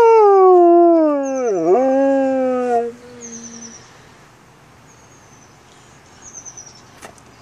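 A wolf howling while lying down: one long howl that slides slowly down in pitch, dips sharply and comes back about a second and a half in, then holds on a lower note and fades out a few seconds in.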